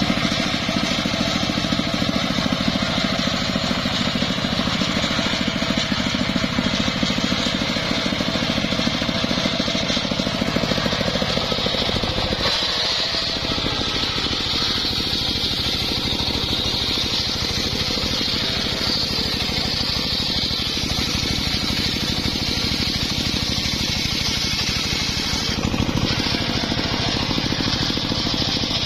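Engine-driven homemade circular table saw running steadily while its blade rips a log lengthwise into rafters. The sound changes abruptly about twelve seconds in and again near the end.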